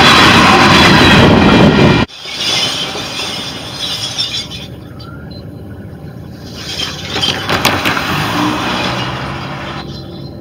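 Freight train boxcars rolling past close by, a loud steady rumble and rattle of wheels on rail that cuts off abruptly about two seconds in. It gives way to a much quieter low rumble as a distant locomotive approaches, with a faint low steady hum near the end.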